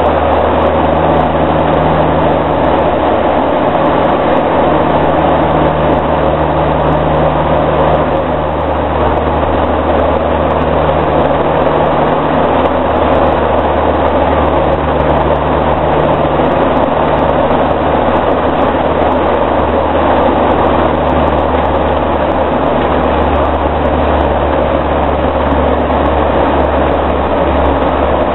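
Cockpit noise of a de Havilland Canada Dash 7's four Pratt & Whitney PT6A turboprop engines and propellers: a loud, steady drone with a low hum through the final approach and the landing roll. The low rumble grows a little stronger near the end.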